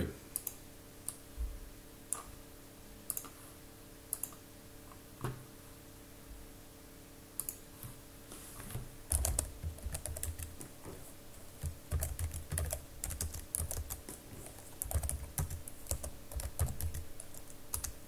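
Typing on a computer keyboard: a few scattered keystrokes at first, then quicker runs of typing from about nine seconds in. A faint steady hum sits underneath.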